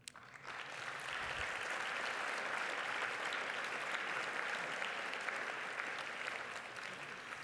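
Audience applauding, swelling over the first second, holding steady, then thinning a little near the end.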